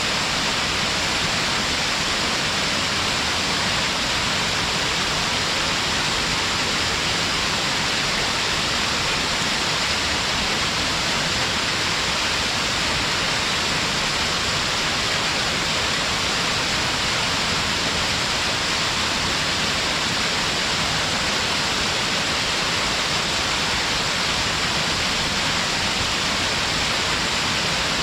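Waterfall pouring steadily over stepped rock, a constant full rush of falling water.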